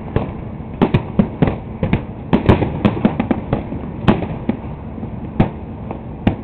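Aerial fireworks going off in quick, irregular succession: a string of sharp bangs, several a second at times, over a steady rumble.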